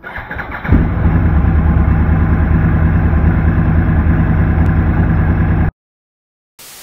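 2014 Yamaha YZF-R1's crossplane inline-four, fitted with an Akrapovič muffler, cranked on the electric starter, catching in under a second and settling into a steady idle. The sound cuts off suddenly near the end, followed by a short burst of static hiss.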